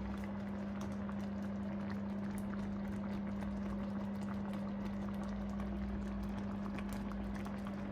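Thick jjajang tteokbokki sauce bubbling and popping in a shallow pan as it simmers, with many small crackling pops over a steady low hum.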